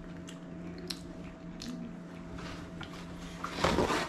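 A person biting and chewing a burrito close to the microphone, with small wet mouth clicks. Near the end comes a louder, noisier burst of sound, over a steady low hum.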